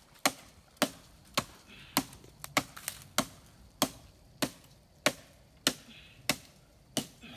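Small hatchet chopping into a wooden tree branch: about a dozen sharp strikes, one roughly every 0.6 seconds.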